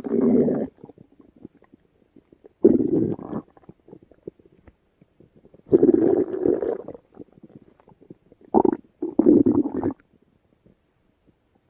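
A stomach rumbling in separate bursts a few seconds apart, with quiet in between. The bursts come closer together near the end.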